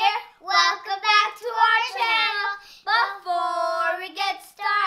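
Young children singing a short tune in short phrases, with one longer held note a little past the middle.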